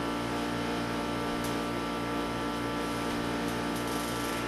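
Steady electrical hum with a low pulsing about twice a second, and a few faint light ticks.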